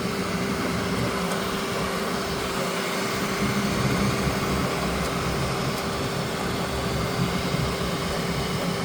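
A 3D printer running a print: a steady hum with one constant tone, under a lower motor whine that keeps shifting as the print head and bed move.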